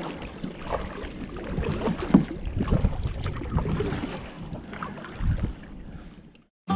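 Handling noise aboard a kayak: irregular knocks and thumps against the hull with wind on the microphone, fading out and cutting off a little before the end.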